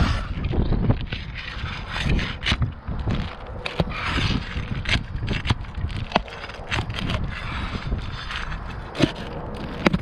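Roof shingles being scraped and pried loose as roofing nails are pulled out, with irregular scraping and sharp clicks and knocks.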